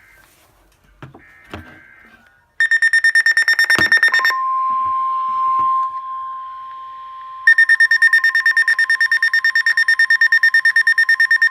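NOAA Weather Radio receiver going off for a severe thunderstorm warning. After a few faint short data bursts, a loud rapid pulsing alarm beep starts about two and a half seconds in. About four seconds in, a steady warning tone takes over. The pulsing beep comes back over the tone about seven and a half seconds in. This is the same alert being sounded a second time.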